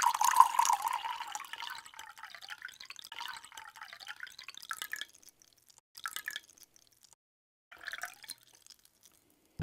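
Milk pouring and splashing, fading over the first few seconds and thinning to a couple of short trickles and drips with quiet between them.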